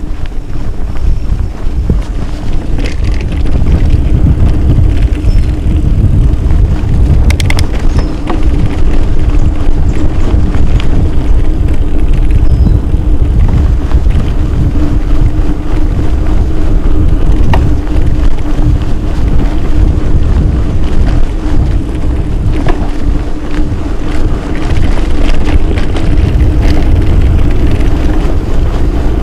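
Wind rumbling loudly on a camera microphone as a Scott mountain bike rolls over a dirt trail, with tyre noise, a steady low hum and scattered clicks and rattles from the bike.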